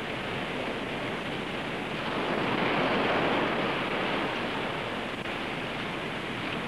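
Surf washing onto a beach: a steady rush of breaking waves that swells a little louder two to three seconds in.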